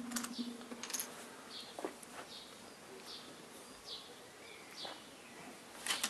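A few light clicks and taps on a ThinkPad T450 laptop's keyboard and case as it is switched on after a RAM upgrade, the sharpest just before the end. In the background a short high chirp repeats about once a second.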